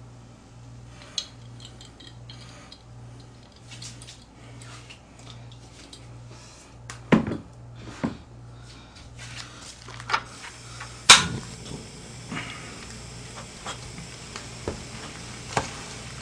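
Spoon, bottles and dishes clinking and knocking against a metal pot and the tabletop. There are scattered light clinks and a few sharp knocks about seven, eight and eleven seconds in, the one at eleven the loudest.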